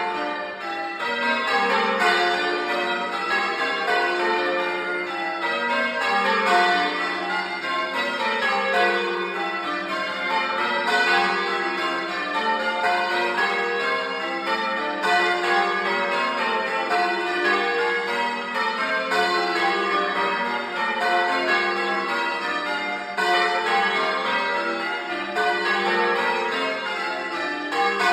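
Church bells change ringing, heard close up in the belfry. A steady, unbroken run of bell strikes steps down through the bells in sequence, each note ringing on under the next.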